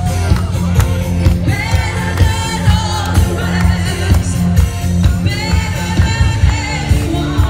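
Dance music with a singing voice over a strong bass line and a steady beat.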